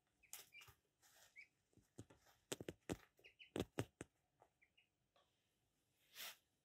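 Ducklings pecking cornmeal off newspaper: quiet, scattered sharp taps and paper rustles, most thickly around the middle, with a few short soft peeps.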